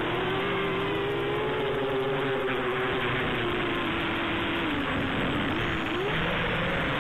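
Quadcopter's electric motors and propellers whirring in flight, the pitch wavering up and down as the throttle changes, with a dip about five seconds in before it picks up again.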